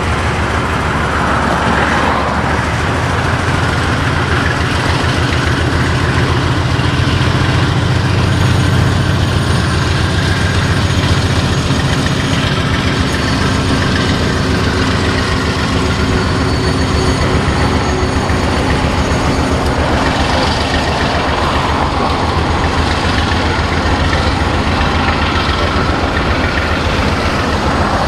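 Two Norfolk Southern GE ES44AC diesel-electric locomotives pass at speed with a steady deep engine hum, followed by the rumble of covered hopper cars rolling over the rails.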